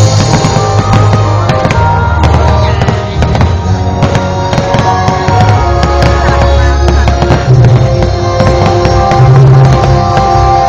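Loud music with a heavy bass line playing throughout, mixed with many sharp bangs and crackles of exploding fireworks.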